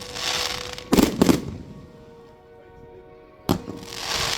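Fireworks going off: a hiss, then two sharp bangs about a second in. After a quieter spell comes another sharp thump and a hiss that grows louder near the end.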